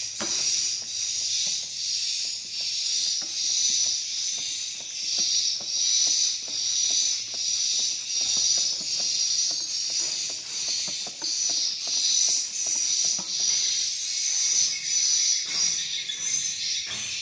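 Edible-nest swiftlet calls: a high, rasping chirring that pulses evenly, about three pulses every two seconds.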